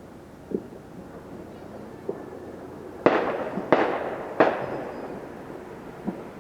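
Fireworks going off: three loud bangs in quick succession about three seconds in, each echoing away, with fainter single pops before and after.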